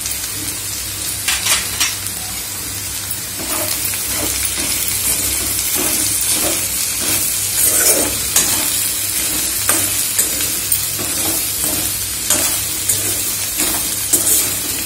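Okra pieces sizzling in hot oil in a kadai, with a few light clicks about a second and a half in. From about three and a half seconds in, a steel spatula scrapes and stirs through them about twice a second, working the just-added chili, salt and coriander powder into the frying okra.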